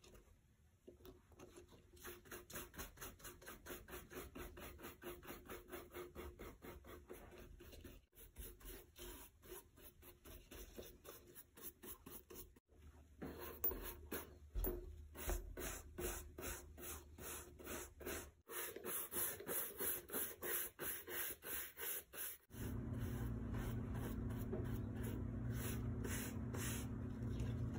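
Horsehair brush stroked quickly back and forth over a leather handbag: a soft, even bristle rasp at about three strokes a second. Near the end a steady low hum starts up underneath.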